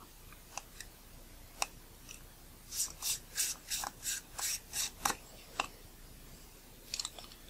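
Rubber cone lens tool being twisted against a threaded metal lens ring to unscrew it: a few isolated scuffs, then a run of short, quiet scraping rubs at about three a second in the middle.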